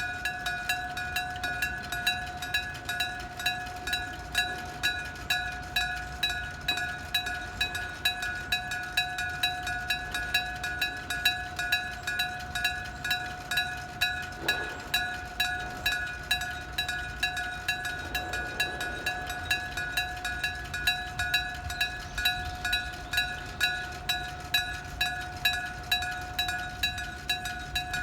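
Japanese railroad crossing's electric bell (denshō-shiki) ringing steadily, its hammer striking the bell about one and a half times a second with a bright metallic clang.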